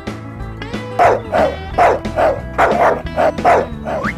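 A dog barking repeatedly in quick short barks, about three a second, starting about a second in after a brief pause, over background music.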